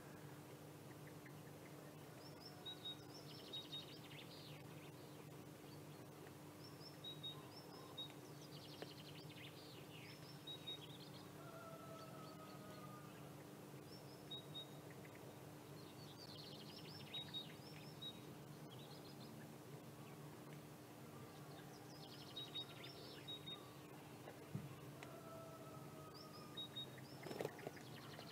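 A songbird sings faintly, repeating a short phrase every four to five seconds: a few brief high whistles, then a scratchy rattle. A steady low hum runs underneath, and there is a brief rustle near the end.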